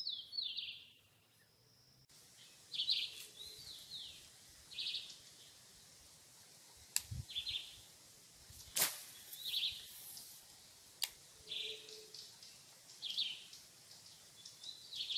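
A bird calling over and over in short high chirps, about one every second or so. A few sharp clicks break in, the loudest about nine seconds in.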